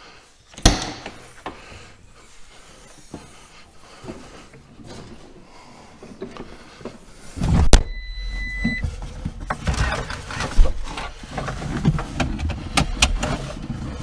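The cab door of a New Holland C185 compact track loader bangs shut once, about a second in. About halfway through, its turbo diesel engine starts with a beep of about a second and keeps running, with a steady low rumble and clatter.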